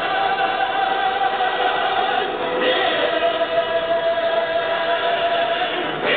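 Music with a long held note at a steady pitch, stepping down slightly about three seconds in and holding again.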